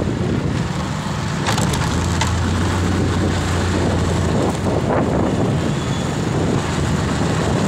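Motorcycle engine running while riding, with a steady rush of wind and road noise.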